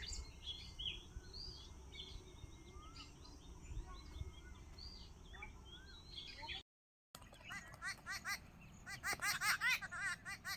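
Wild birds calling: scattered short chirps and whistles at first, then, after a brief break, fast runs of repeated chattering notes.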